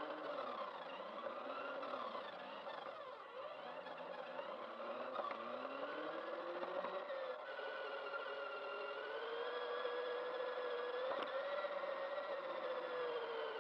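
Kyosho Overland H2 Hummer RC car's small electric motor and gear drive whining as it drives, the pitch rising and falling with the throttle.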